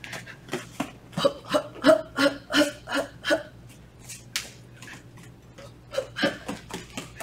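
A person's quick barefoot footwork on training mats with breathing, in short strokes about three a second. There are two runs, the first louder, with a quieter stretch between.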